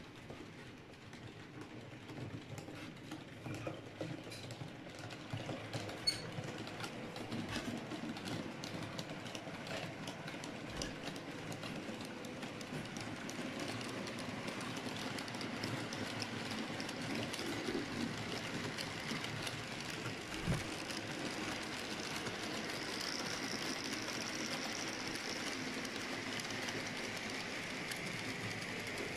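H0-scale model freight train running along the layout track: small wheels clicking over rail joints under a steady running rumble that grows louder as the long string of wagons rolls by.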